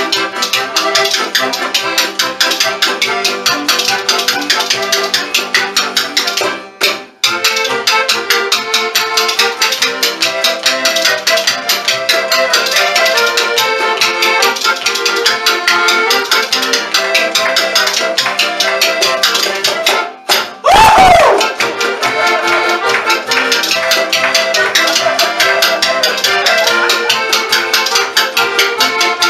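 Two spoons held back to back clacked in a fast rhythm against the knee and hand, playing along with a polka. The music drops out briefly twice, and just after the second break a loud sliding sound falls in pitch.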